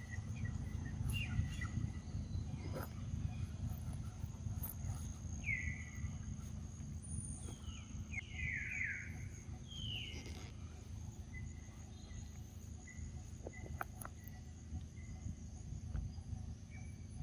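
Forest ambience: a steady high insect drone over a low rumble, with a few short, falling calls between about five and ten seconds in.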